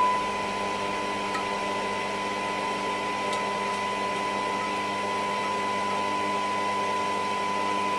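Hacker Hunter RP38A transistor radio's speaker putting out a steady FM hiss with a faint hum, the 1 kHz test tone cutting out at the start as the FM front-end coil is turned off the signal during alignment.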